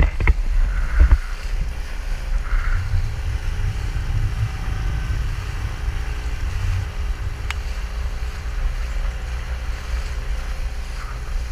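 Inflatable boat under way, driven by a Nissan 9.8 four-stroke outboard: a steady deep rumble of wind buffeting the microphone and water rushing past the hull, over the running motor. Two sharp knocks in the first second.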